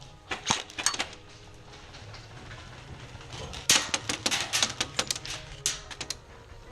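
Airsoft guns firing: sharp snapping shots, a few about half a second in, a fast string of about ten shots around four seconds in, and two more near the end.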